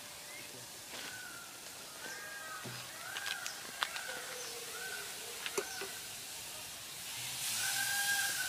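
A metal spoon clicks and scrapes against a blackened cooking pot over a wood fire, while a bird calls over and over in short chirps. Near the end a hissing sizzle rises as a white liquid is poured into the hot pot.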